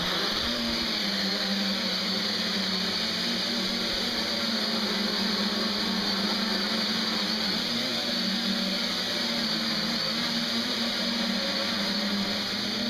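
Quadrotor's four electric motors and propellers whirring steadily in flight: a low hum that wavers a little in pitch as the thrust changes, over a strong high hiss of air from the props.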